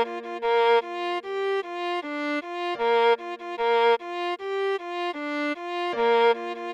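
Viola tone playing a quick, repeating melody figure in B-flat major on B-flat, F, G and D, with a low note held under the melody. The phrase comes round about every three seconds.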